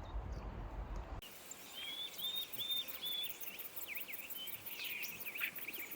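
Low wind rumble on the microphone, then an abrupt switch about a second in to birds singing: a run of short chirped notes followed by faster twittering, with a quick, even high-pitched ticking behind.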